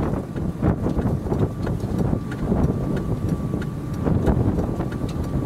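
Strong, gusty wind buffeting the microphone in uneven surges. A faint steady high tone sits underneath from about two seconds in.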